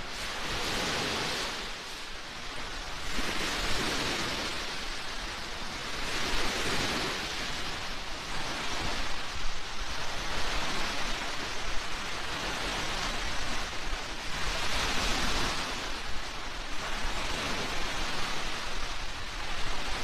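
Small waves washing onto the shore: a steady hiss that swells and fades about every three seconds.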